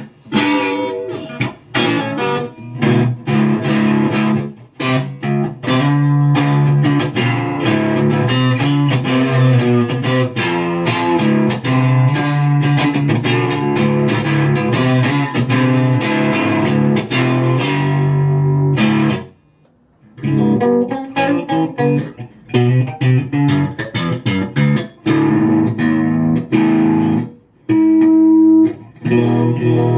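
Electric guitar played through an Egnater Tweaker tube amplifier and a VHT Special 6 1x12 cabinet: a continuous run of notes and chords that stops for about a second roughly two-thirds of the way through, then picks up again.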